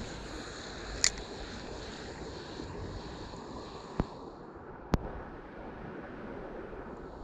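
Steady wind and light water noise around a canoe, broken by three short sharp clicks from the spinning rod and reel being cast and worked: one about a second in, two more around four and five seconds in.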